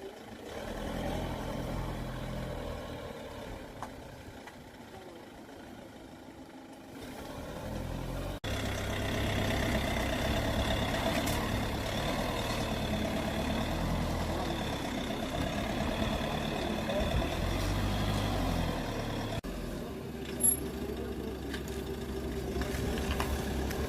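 Motor vehicle engine noise with a steady low rumble, in three cut-together stretches. It gets louder after about eight seconds.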